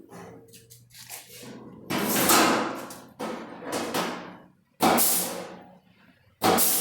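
Loud knocks and bangs on car-body sheet metal, about four of them a second or so apart, each with a short ringing tail.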